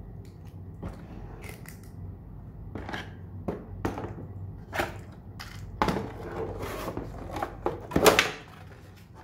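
Hands handling a plastic suction-cup car-mount arm and a cardboard product box: a string of clicks, knocks and scrapes of plastic and cardboard. The loudest scrape comes near the end, as the white packing insert is pulled out of the box.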